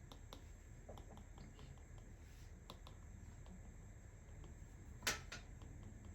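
Faint, irregular light clicks and taps from working at a digital drawing setup, with one sharper click about five seconds in.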